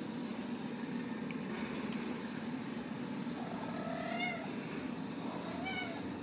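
Ragdoll kitten meowing twice, short high meows about three and a half seconds in and again near the end, over a steady low hum.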